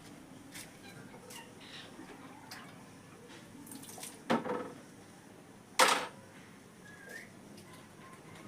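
Ring-necked parakeet giving two short, harsh squawks about a second and a half apart, followed by a faint short rising chirp.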